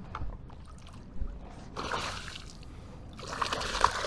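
Water splashing right beside a kayak in two bursts, about two seconds in and again near the end, as a hooked bass is brought to the landing net.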